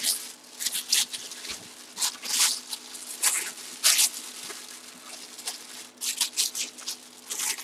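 Clear plastic bag and bubble wrap crinkling and rustling in irregular spurts as a full-size football helmet is handled and unwrapped.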